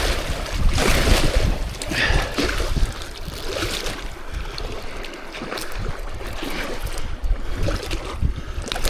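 Wind buffeting the microphone with a steady low rumble, over water washing and sloshing at the shore in uneven swells, strongest in the first few seconds.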